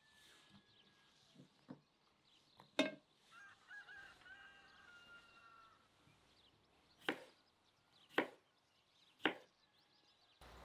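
Kitchen knife slicing tomatoes on a wooden cutting board: the blade knocks against the board with each cut, three knocks about a second apart in the second half after a louder one near three seconds in. A bird calls faintly in the background just after the loud knock.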